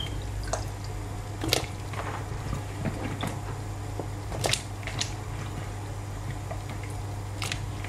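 Pot of water simmering with sliced potatoes and carrots in it: scattered small pops and clicks, about half a dozen, over a steady low hum.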